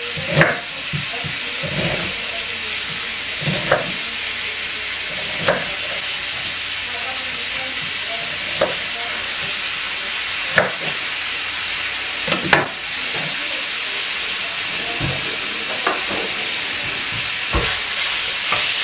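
Pork pieces sizzling in sunflower oil in a frying pan, a steady hiss, with a knife knocking against a wooden cutting board as an onion is sliced, sharp knocks every one to three seconds.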